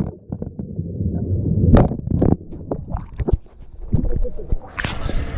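Fountain water heard through a GoPro dunked under the surface: a muffled low wash of water with scattered pops and knocks. Near the end the sound opens up again as the camera comes out of the water.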